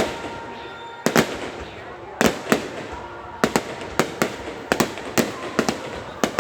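Aerial fireworks bursting: a dozen or more sharp bangs at irregular intervals, coming closer together in the second half.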